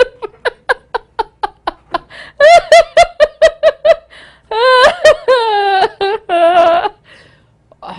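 A woman's fit of laughter: quick breathy bursts, then a run of loud "ha-ha" pulses about five a second, then long high-pitched wailing laughs that break off near the end.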